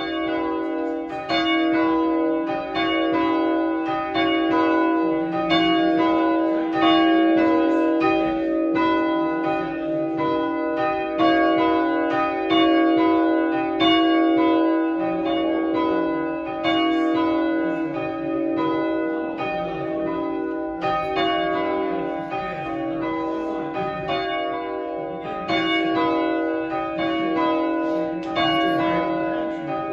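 A ring of three church bells, tenor about 6 cwt and tuned to B, rung full circle with ropes: the bells strike one after another in a steady, even rhythm, each note ringing on under the next.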